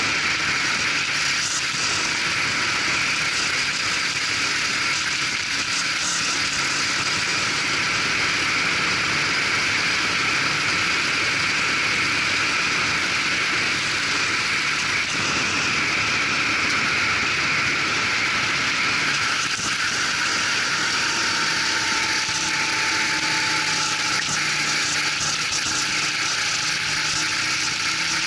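Racing kart's engine running under way, picked up by a camera mounted on the kart: a loud, steady mechanical rattle and hiss.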